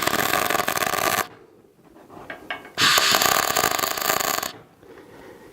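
Electric arc welder laying two tack welds: a steady crackling that stops about a second in, then a second burst of about a second and a half, with a few light ticks between.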